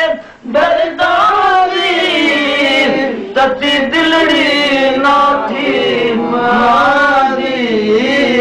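Male voice singing a devotional Punjabi kalam through a microphone, in long, wavering held notes, with a short break about half a second in.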